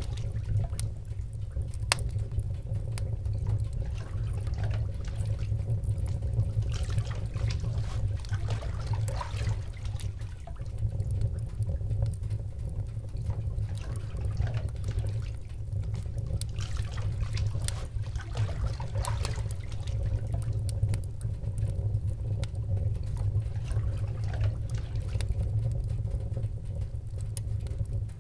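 Water trickling and splashing by hand in a basin during a bath, with scattered light clicks over a steady low rumble.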